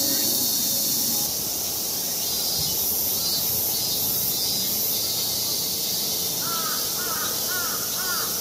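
Crows cawing: a quick run of about six caws near the end, over a steady high hiss.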